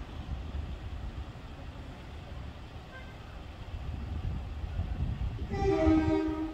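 Class 377 electric train approaching with a low rumble that grows louder, then sounding its horn once for about a second near the end.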